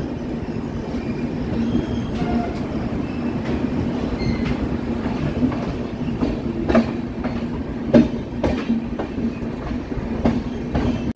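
LHB passenger coaches of an Indian express train running at speed, heard on board: a steady rumble of wheels on rail. A few sharper clacks come over rail joints in the second half, the loudest about eight seconds in.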